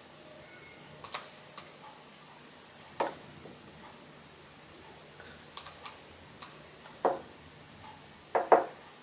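A metal spoon clicking and tapping against a small container of masago roe as the roe is scooped out and dabbed onto sushi rice. The taps are scattered and light, with a louder pair near the end.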